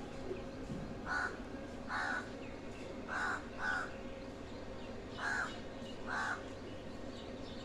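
A crow cawing: six short caws in three pairs, with pauses of a second or more between the pairs, over a faint steady hum.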